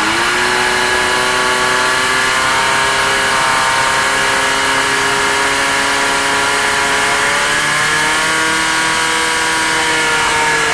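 Portable fire-sport pump's engine running flat out at a high, steady pitch, driving water through the hoses to the nozzles; its pitch climbs a little about eight seconds in.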